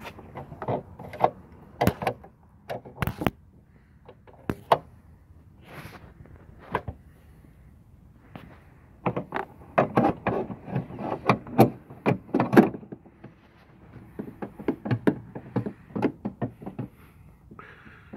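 Irregular clicks, knocks and rattles of a steel sliding-door roller bracket being handled and fitted against the door, coming in clusters with short pauses between them.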